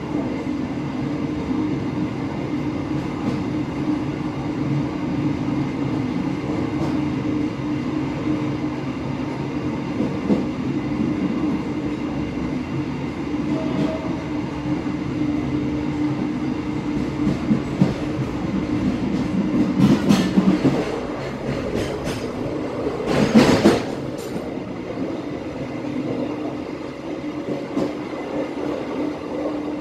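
Passenger train carriage running on the rails: a steady rumble and hum of wheels on track. There are two louder spells of clatter, about two-thirds of the way through.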